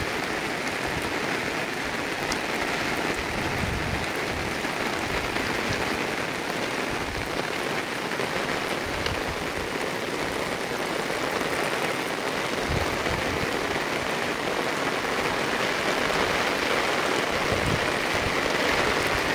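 Heavy rain pouring steadily on fields and trees.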